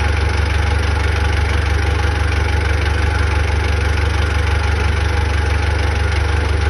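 A large engine idling steadily: an even, low, fast-pulsing rumble with no change in speed.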